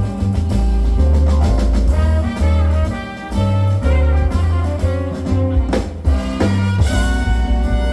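Jazz quintet playing live: trumpet and saxophone lines over piano, bass and drum kit, with two sharp drum accents near the end.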